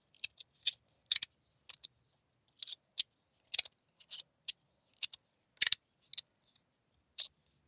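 Anodized aluminium fidget slider being slid back and forth by hand, clicking sharply each time the slide snaps into place, about two irregular clicks a second, some in quick pairs.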